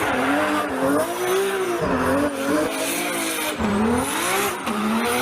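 Toy police car's built-in electronic sound effect played through its small speaker: a revving engine noise that rises and falls in pitch over a hiss.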